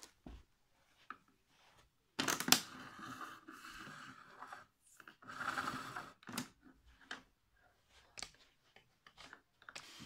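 Handling noise on a vintage Hoover Sensotronic cylinder vacuum cleaner: a sharp click about two seconds in, then a couple of seconds of rustling and scraping, a second shorter burst, and a few scattered clicks. The motor is not running.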